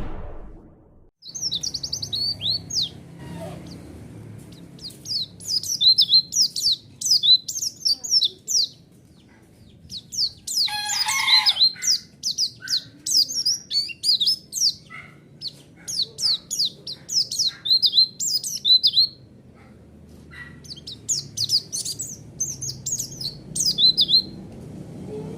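White-eye (pleci) song: rapid twittering phrases of high, quick down-slurred notes, coming in several bursts a few seconds long with short pauses between. A harsher, noisier call breaks in about eleven seconds in.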